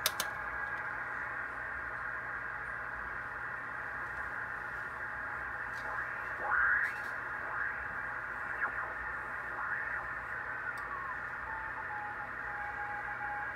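Hallicrafters FPM-300 transceiver's receiver audio from a speaker on the 15 meter band: steady band hiss with faint signals in it, the sign the band is receiving again after the T403 transformer was peaked. A switch click comes at the start. About six seconds in, signals whistle and slide in pitch as the main dial is tuned across them, and near the end a steady single beat-note tone comes in.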